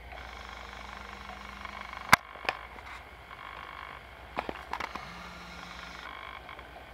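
Sharp metal clicks and taps from hand tools working a screw into the metal handle of a kitchen hatchet clamped in a bench vise. The loudest click comes about two seconds in, and a quick cluster follows a couple of seconds later.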